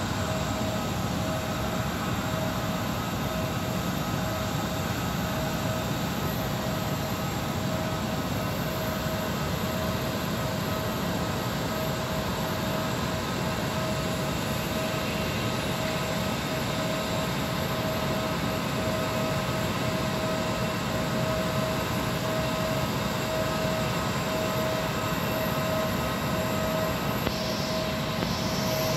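Jet airliner noise: a steady whine over an even rumble, unchanging throughout.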